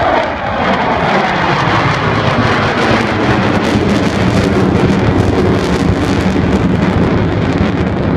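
Four US Navy Blue Angels F/A-18 Hornet jets flying overhead in formation, a loud jet roar with crackle. A falling pitch right at the start marks the pass.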